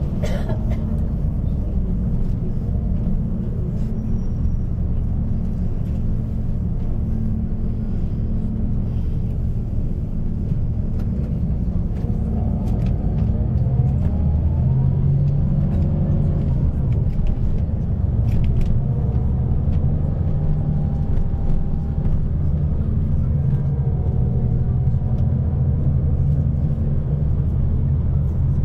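Bus engine and road noise heard from inside a moving bus: a steady low drone, with the engine's pitch rising and falling a few times through the middle as the bus speeds up and slows.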